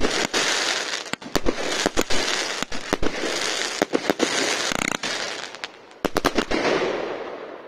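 47-shot compact consumer firework cake firing: a rapid, uneven string of sharp shot reports, each followed by the hiss and crackle of coloured stars bursting. A last quick cluster of shots comes about six seconds in, then the hiss fades as the cake finishes.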